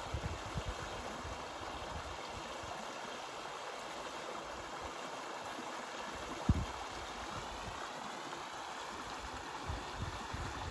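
Mountain stream running over rocks, a steady rush of water, with a single short low thump a little past the middle.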